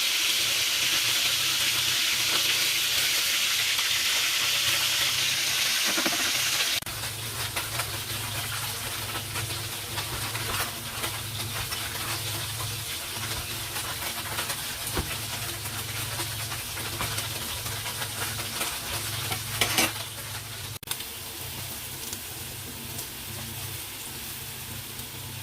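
Tofu and vegetables sizzling in a hot pan while being stirred, with scattered clicks of a spatula against the pan. The sizzle is loud at first and drops abruptly about seven seconds in, then carries on more quietly, over a steady low hum.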